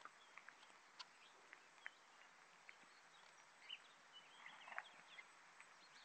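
Near silence, with faint short bird chirps about four to five seconds in and a few scattered light clicks.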